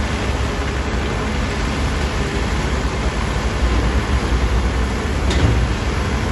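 Heavy diesel engine of earthmoving machinery running steadily with a deep low-end drone, and a brief faint tap about five seconds in.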